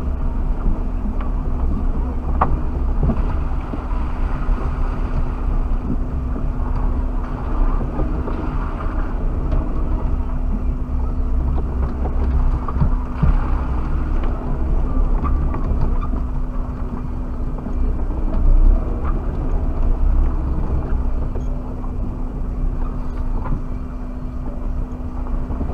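Suzuki Jimny driving over rough ground: a steady engine drone with deep low rumble and a constant hum, heard from inside the cabin, with scattered small knocks and rattles.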